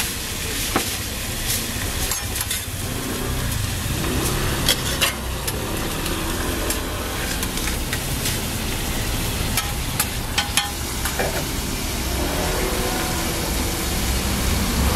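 Meat, sausages and a fried egg sizzling on a hot flat-top griddle, with a few sharp clicks of metal tongs and spatula against the griddle, over a steady low rumble.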